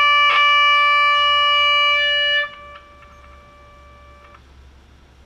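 A steady test tone of about 600 Hz from an audio signal generator fed into the volume potentiometer, playing through a SoundDesign 6-transistor radio's speaker: its audio section is working. A click comes just after the start; the tone drops sharply about two and a half seconds in, carries on faintly, and stops a little after four seconds.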